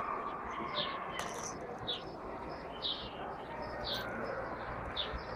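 Short, high chirps repeating about once or twice a second, as from a small bird, over a steady background hiss.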